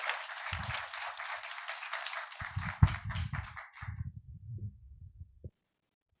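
Audience applauding, the clapping thinning out and dying away about four seconds in; the sound then cuts off to silence.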